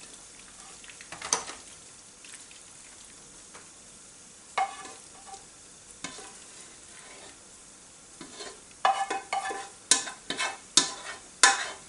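Leftover macaroni carbonara being tipped from a metal mixing bowl into a pastry-lined tray by hand, with a few soft scrapes at first. In the last few seconds comes a quick run of sharp taps and scrapes against the metal bowl, some leaving a brief ring.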